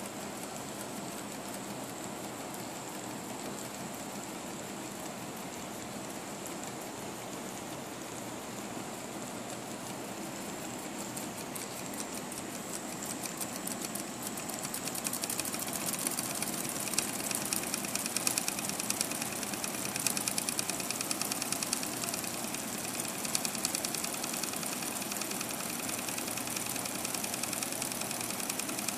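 Weeden Model 8 toy steam engine running under steam: a steady hiss, then a fast, even mechanical chatter that comes in about halfway through and grows louder.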